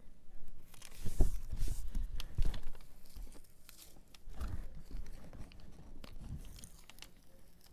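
Transfer tape being peeled slowly off a vinyl stencil, an irregular crackling, tearing rustle, with a few dull knocks as the hands press on the surface.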